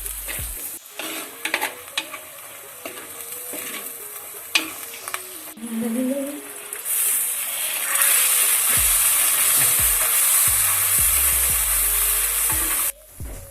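Food frying in hot oil in a pan, with a few utensil clicks and scrapes early on. About seven seconds in, a loud, steady sizzle begins, then cuts off suddenly near the end.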